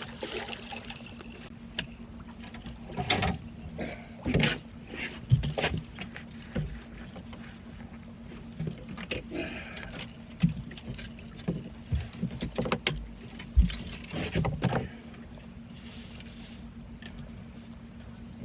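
Irregular knocks, rattles and clatter in a fishing boat while a just-landed blue catfish is handled, over a steady low hum. The clatter is busiest from about three to fifteen seconds in, then dies away.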